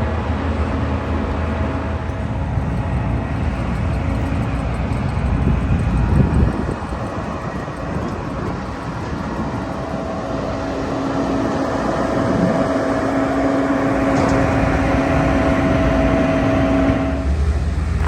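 Engine of heavy harvest machinery running steadily; its note changes about halfway through and again shortly before the end.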